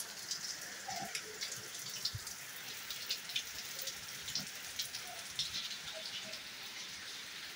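Heavy rain falling steadily, with irregular drops and drips ticking close by.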